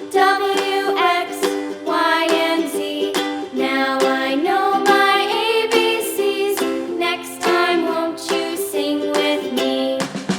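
Background music: a melody over a plucked-string accompaniment with regular, evenly spaced strikes.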